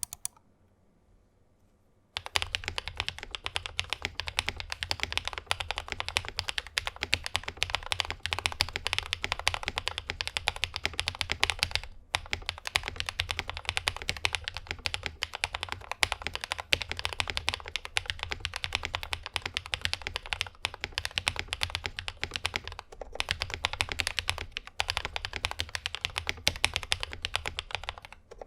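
Fast, continuous typing on a 60% mechanical keyboard with lubed Akko CS Rose Red linear switches in a polycarbonate plate, under PBT Cherry-profile keycaps: a dense stream of keystrokes that starts about two seconds in and breaks off briefly a few times. The plate and PCB foam give the switches a deeper, thockier sound.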